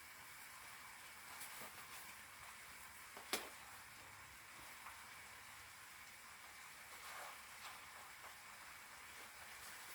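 Faint sizzling of vegetables frying in a pan, an even hiss with a few soft ticks and one sharper click about three seconds in.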